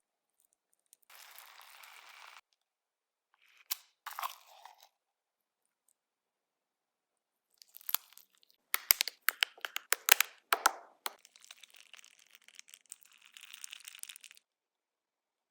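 Crunchy slime being squeezed and poked: several separate bouts of crackling, the loudest a run of sharp popping crackles about halfway through, with quieter crinkly crackling before and after.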